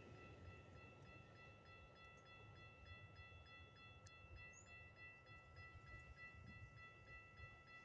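Railroad crossing warning bell ringing faintly in a steady, quick repeat while the crossing gates rise after a train has passed.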